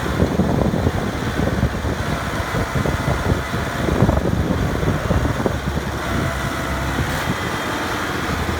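A farm machine's diesel engine running steadily, with a rough, irregular low rumble.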